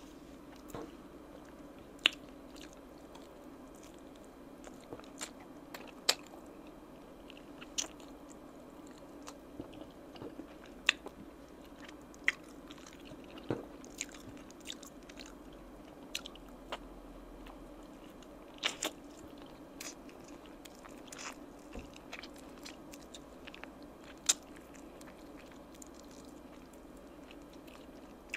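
Close-miked eating of oven-roasted chicken wings: irregular biting and chewing with scattered sharp mouth clicks and smacks, over a faint steady hum.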